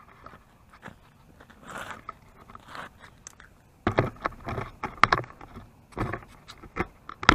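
Crunching of snow and broken ice chunks under boots and hands, faint and scattered at first. About four seconds in it turns into a run of loud, irregular crunches and knocks.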